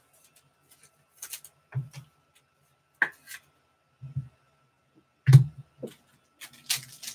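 Trading cards, packs and boxes handled on a table: several soft thumps, a few clicks and brief rustles, then foil pack wrappers crinkling near the end.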